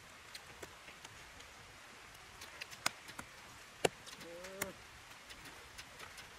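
Faint sounds of a person eating with chopsticks: a few scattered sharp clicks, and a short low hum a little after four seconds in.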